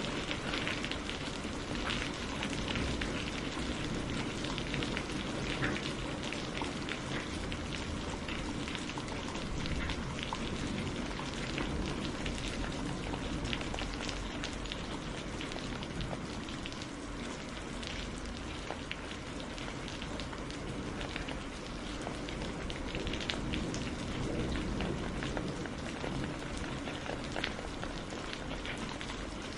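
Wood campfire burning, crackling steadily with many small, irregular pops over the low rush of the flames.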